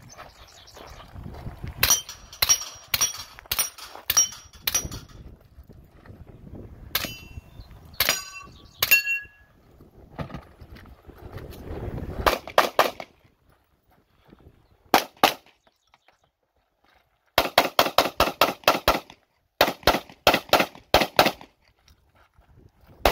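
Gunshots fired in strings during a multi-gun stage. In the first half, several shots are each followed by the ring of a struck steel target. In the second half, quick strings of handgun shots come with no ring; one string near the end runs to about eight shots in a second and a half.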